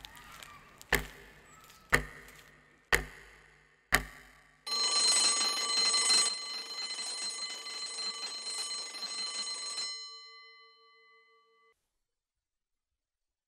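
Wall clock ticking loudly four times, once a second. Then an electric school bell rings steadily for about five seconds and dies away.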